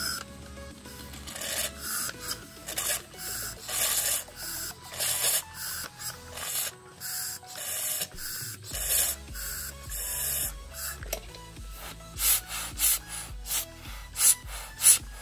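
Short hissing bursts of air blown through a motorcycle's rear disc-brake caliper, purging the leftover old brake fluid. The bursts come about two a second, and the sharpest, loudest ones come near the end.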